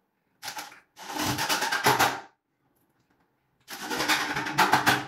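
A handheld electric power tool running in three short bursts, the last two each over a second long, with fine rapid pulsing and complete silence between bursts.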